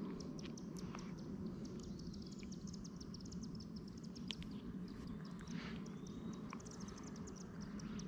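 Faint outdoor ambience at dusk: a steady low hum under rapid, high-pitched chirping of wildlife, with a few faint gliding calls about halfway through.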